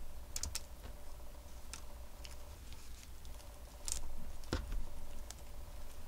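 Scattered light clicks and taps of a cat playing with a fuzzy shrimp-tempura toy on a string on a hard, shiny desk; the loudest tap comes about four and a half seconds in. A low steady hum lies underneath.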